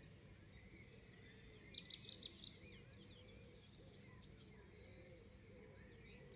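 Dawn chorus of several songbirds singing over faint background rumble, with a louder, fast trill of rapidly repeated high notes starting about four seconds in and lasting about a second and a half.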